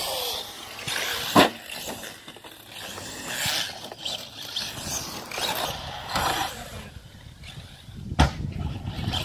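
Electric RC car driving, its motor whine rising and falling with the throttle, with two sharp impacts: one about a second and a half in and a louder one near the end.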